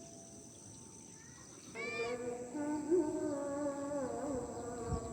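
An unidentified bird giving a drawn-out, wavering call, which the uploader finds eerie, over a steady high insect buzz. The call starts about two seconds in with a few quick rising-and-falling notes, then holds a long wobbling tone.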